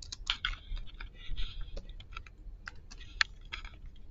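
Typing on a computer keyboard: an irregular run of quick keystrokes.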